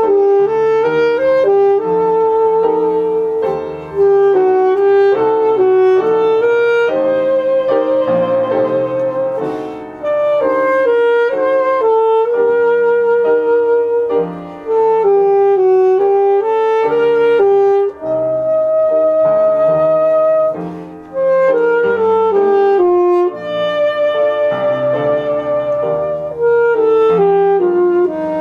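A saxophone plays a slow melody of held notes with vibrato, in phrases broken by short pauses, over upright piano accompaniment.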